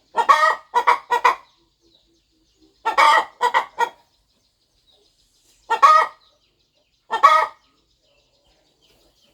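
Broody hen clucking in short, separate calls: a quick run of three, another run of three about three seconds in, then two single clucks.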